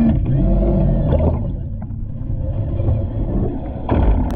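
Muffled, low underwater rumble picked up by a submerged microphone in a swimming pool, with a brief louder surge near the end.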